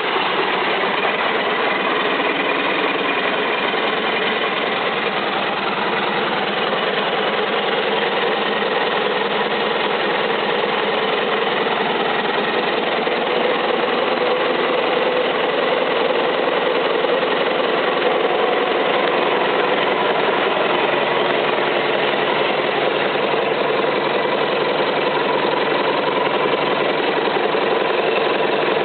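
Isuzu 4BD1-T four-cylinder turbo diesel engine idling steadily, just after its first start following a rebuild, and running well.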